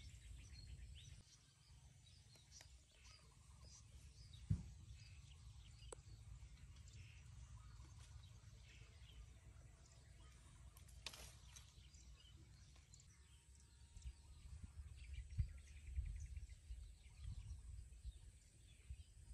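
Faint pond-side ambience: scattered small bird chirps over a low steady rumble, with a few sharp clicks, the loudest about four and a half seconds in.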